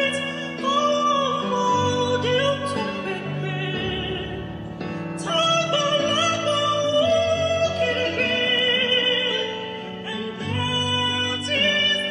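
A woman singing in an operatic style, holding long notes with vibrato over sustained musical backing.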